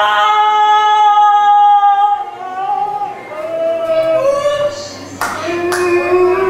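A woman singing slow, long-held notes that step down in pitch. About five seconds in, sharp percussive hits come in under a lower held note.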